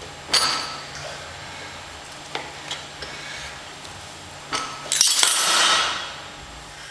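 Metal clinking of a Rolling Thunder grip handle, its chain and loading pin against stacked iron weight plates during a grip lift: a sharp ringing clink about a third of a second in, a few lighter clinks, then a louder clatter about five seconds in as the handle is let go.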